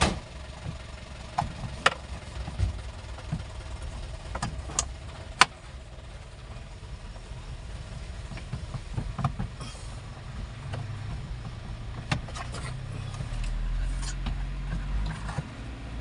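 Sharp plastic clicks and knocks from a car's instrument cluster being handled and pushed into its dashboard housing, the loudest about five seconds in. A low engine rumble runs underneath and swells for a moment near the end.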